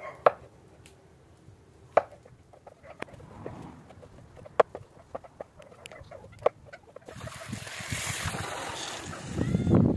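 Chef's knife cutting mushrooms on a wooden cutting board: sharp knocks on the board every couple of seconds with light ticks between. About seven seconds in, a garden-hose spray nozzle starts, hissing as water sprays into a plastic bowl of cut mushrooms.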